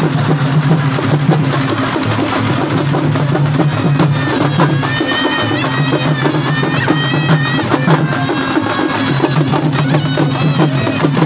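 Traditional procession music played live: steady drumming, with a shrill reed-pipe melody coming in about four seconds in and fading near eight seconds, over crowd noise.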